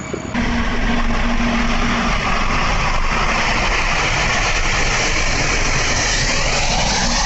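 A train plowing through deep snow at speed: a loud, steady rush of thrown snow over the drone of the locomotive. A steady hum runs through the first two seconds, and a rising tone comes in near the end.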